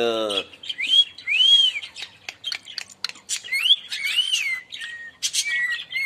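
Cockatiel giving several whistled calls that rise and fall in pitch, with quick chirps and clicks between them.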